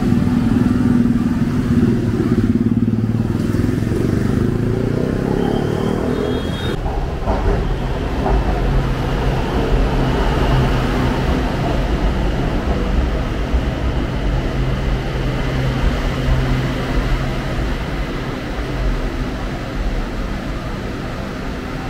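An engine running, its pitch rising over the first few seconds as it speeds up, then settling into a steady low rumble.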